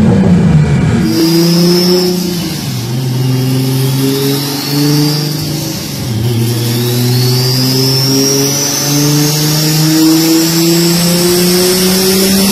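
Big single-turbo Toyota Supra engine running hard on a chassis dyno. The exhaust note holds fairly steady, dips briefly about halfway through, then climbs slowly, while a turbo whistle rises in pitch over the second half. It opens with the tail of a loud rev from a Supra whose exhaust is spitting flame.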